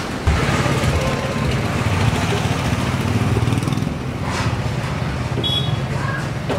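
Hot oil bubbling and frying in a large iron kadai over a gas burner, a steady low roar under the frying hiss.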